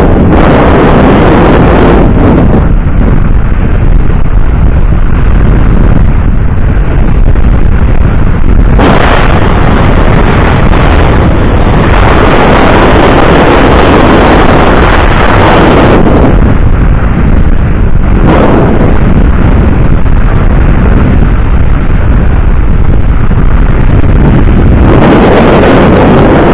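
Wind rushing and buffeting hard over an action camera's microphone on an e-bike moving at speed, a loud rumbling roar that swells and eases every few seconds.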